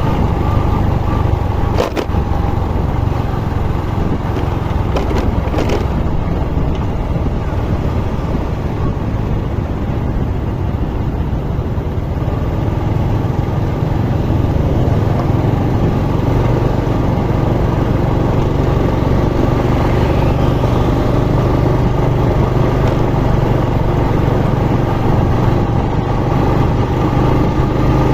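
Motorcycle engine running steadily while riding, with a couple of brief clicks in the first six seconds.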